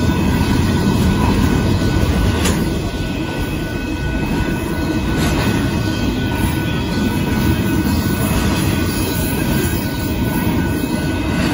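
Double-stack intermodal container cars rolling past at speed: a loud, steady rumble of steel wheels on rail.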